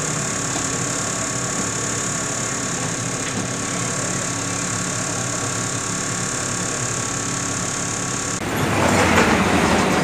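Electrolux Mini Silent 3 kg washing machine running just after being switched on: a steady hum with fine tones. About eight and a half seconds in, a louder hiss sets in as it begins to fill with water.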